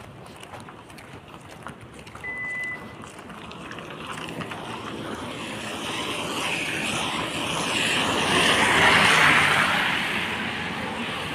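A vehicle's tyres hissing past on a rain-soaked road: the hiss swells over several seconds, is loudest near the end, then eases off. Steady rain is underneath, and a short high beep comes about two seconds in.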